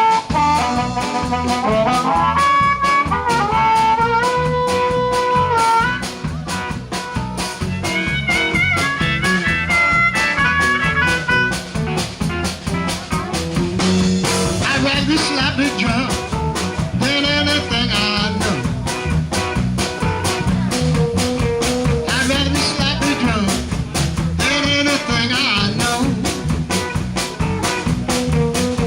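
Live blues band playing an up-tempo number over a steady drum beat, with a lead melody line over the first few seconds before the band settles into a fuller groove.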